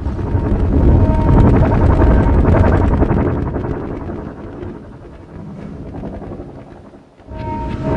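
Contemporary chamber ensemble of violin, saxophone, accordion and percussion with electronics playing a dense, low rumbling noise texture. The rumble fades over several seconds and nearly drops out near the end, then comes back with two held high pitches.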